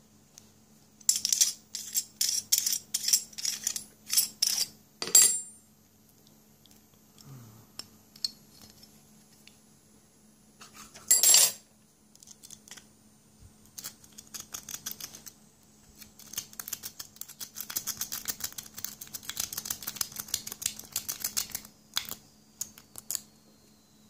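Metal clinks as a lock is handled, then a long run of rapid rattling clicks from about 16 s to 23 s: a rake being scrubbed in and out of the keyway of a six-pin master-pinned pin-tumbler lock, striking the pins. There is one louder metal knock about 11 s in.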